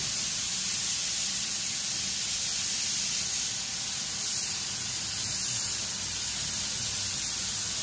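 Steady hiss of air with a faint low hum beneath, heard inside a parked car's cabin.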